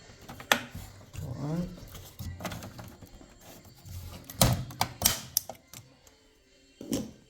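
Sharp clicks and knocks of computer parts being handled and unclipped inside a PC case during disassembly, with a cluster of clicks about four and a half seconds in.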